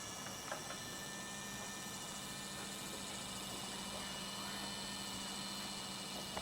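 Small electric gear motor of a fischertechnik model running steadily with a low hum and a thin high whine, with a couple of light clicks near the start.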